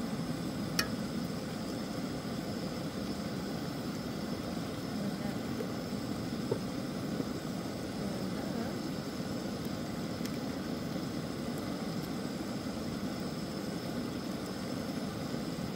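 Steady low rushing of a propane camp-stove burner under a cast-iron Dutch oven of simmering taco meat, with a light click about a second in.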